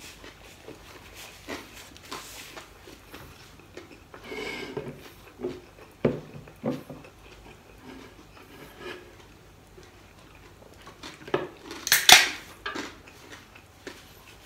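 Scattered light clinks, knocks and rustles of table handling at a meal: dishes, a drinking glass and a soda can being moved. A short, louder hissing burst comes near the end.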